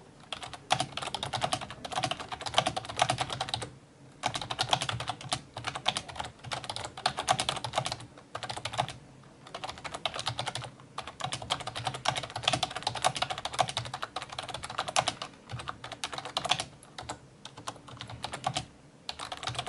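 Typing on a SteelSeries Apex gaming keyboard, a non-mechanical keyboard: quick runs of key clicks broken by short pauses every few seconds.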